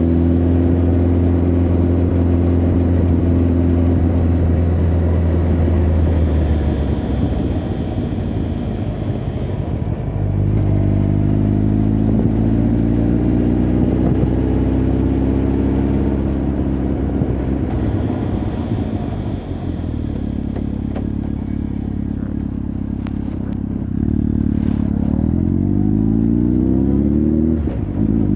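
Honda CB1300 Super Bol d'Or's inline-four engine and exhaust on the move: steady cruising, then easing off about six seconds in, then pulling up through the revs again. There is a short dip in revs near the end before the engine picks up again.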